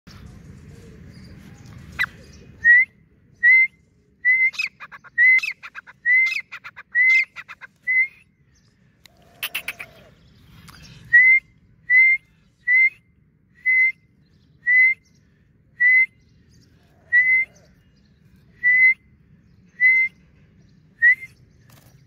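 Francolin calling: a series of short, sharp, rising whistled notes, about one a second, pausing briefly in the middle. Some of the notes in the first half have a rattling edge.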